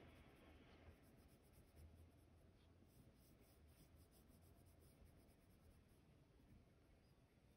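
Faint scratching of a Prismacolor colored pencil on paper, in short repeated shading strokes as a leaf is colored in.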